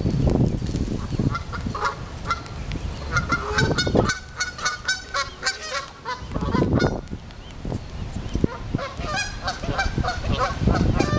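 Canada geese honking in runs of short repeated calls, one bout about three seconds in and another near the end.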